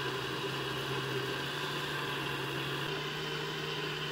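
Countertop blender motor running steadily, puréeing broccoli and carrot soup, with a constant low hum that steps up slightly in pitch about three seconds in.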